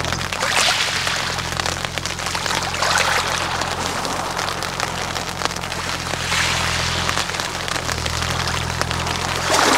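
Small waves washing onto a pebble beach, surging about every three seconds and rattling the wet pebbles as they run up and draw back. A steady low hum runs underneath.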